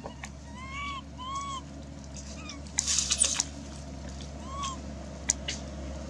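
Infant long-tailed macaque giving short, rising-and-falling coo calls: two close together about a second in and one more near the end. A brief scratchy noise, the loudest sound, comes in the middle.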